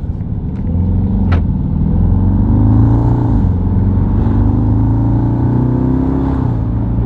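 Jeep Grand Cherokee SRT's HEMI V8 accelerating through its muffler-deleted exhaust in a moderate pull, with a low growl. The engine note climbs, drops back briefly about three seconds in as it shifts up, then climbs again and levels off. A single sharp click sounds about a second in.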